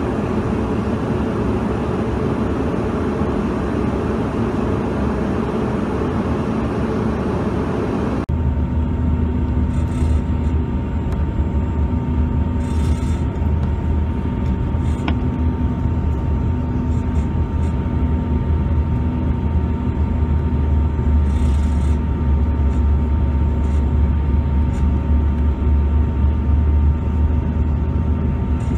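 Cabin noise of a CRJ-200 regional jet in flight, heard from inside: a loud, steady rush of air and engine noise. About eight seconds in, the sound changes abruptly to a deeper rumble with a steady whine above it.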